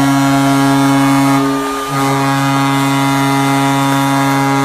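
Arena goal horn sounding a loud, steady, single-pitched blast that breaks off briefly a little under two seconds in and then sounds again, signalling a home-team goal.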